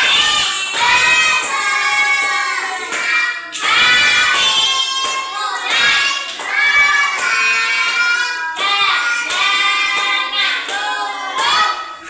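Children's voices singing a song together, in phrases with short breaks between them.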